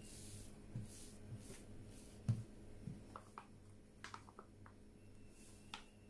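Faint handling sounds: soft swishes and a few light clicks, with one louder knock about two seconds in, over a steady low electrical hum.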